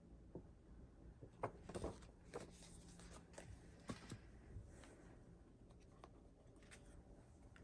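Faint handling sounds: a cluster of light clicks and taps with a little scratchy rustle from about a second and a half in to about four and a half seconds, then a few faint ticks over quiet room tone.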